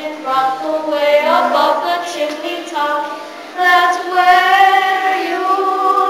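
A child singing a slow melody with long held notes, a new phrase starting about three and a half seconds in.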